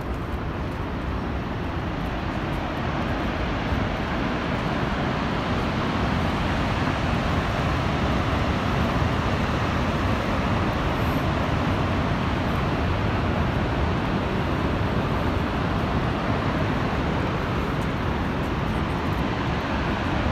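Steady roar of Niagara Falls: an even rushing of falling water with a deep rumble underneath, growing slightly louder over the first few seconds.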